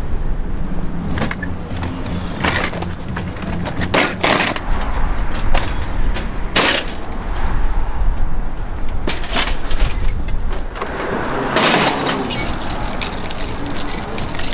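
Scattered knocks and clatters of hard sculpture pieces being handled and set onto a flatbed dolly, one sharp knock about halfway and a longer clatter near the end, over a steady low rumble.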